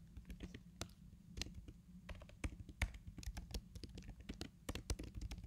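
Typing on a computer keyboard: a quick, irregular run of key clicks that stops at the end, over a faint low hum.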